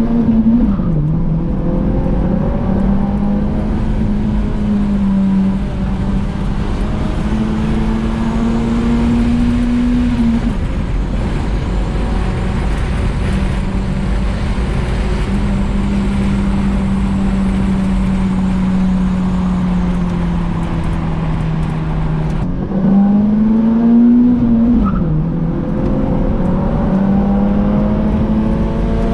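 Honda Accord wagon's swapped H22A four-cylinder engine under way, running with VTEC out of action because of a check-engine fault, over road and tyre noise. The engine note climbs and drops with gear changes near the start and twice more about 23 and 25 seconds in, and holds steady at a cruise in between.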